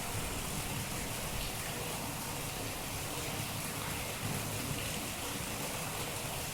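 Steady monsoon rain falling, an even hiss with no letup.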